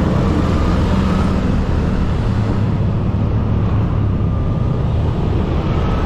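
Motorcycle riding in road traffic: a steady low rumble of engine and road noise.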